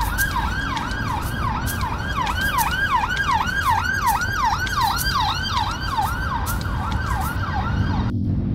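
Emergency vehicle siren on a fast yelp, rising and falling about three times a second over steady road-traffic rumble; it cuts off abruptly near the end.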